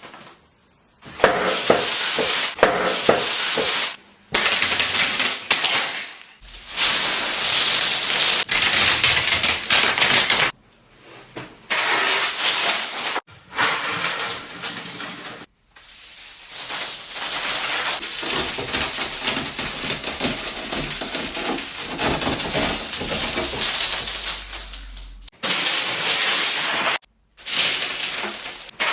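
Crisp crackling and crunching noises, like something brittle breaking, in a series of segments cut apart by brief silences.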